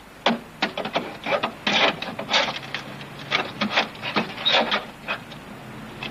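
Hands rubbing and scraping at the rusted steel sill and wheel arch of a 1974 Volvo estate, a string of short, uneven rasping scrapes that die away near the end.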